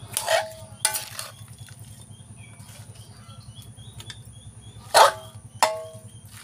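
A metal utensil clanking against a metal cooking pot while meat, onions and spices are mixed in it: a few sharp clanks, each with a short ringing tone, the loudest about five seconds in. A low steady hum runs underneath.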